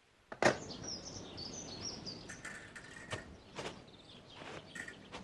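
Outdoor ambience with birds chirping, opened by a sharp knock about half a second in, the loudest sound, and followed by a few lighter clicks and knocks.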